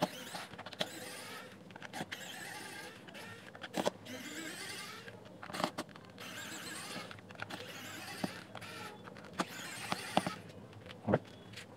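Cordless electric precision screwdriver whining in about five short runs, its pitch wavering as it backs small screws out of a plastic radio casing. Sharp clicks of screws and plastic come between the runs.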